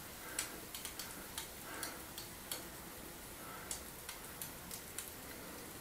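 Hand-pump pressure sprayer wetting down a rubble stone wall before it is mortared: faint short hisses of spray, with irregular sharp ticks throughout.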